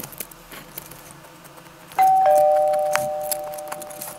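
Faint scratching of a pencil drawn along a ruler on paper, then about two seconds in a two-note doorbell chime, a higher tone followed by a lower one, both ringing on and slowly fading.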